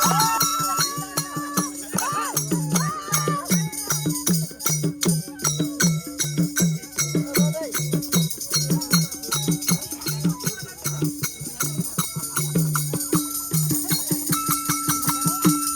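Background music with a fast, steady rattling percussion beat over a pulsing bass note.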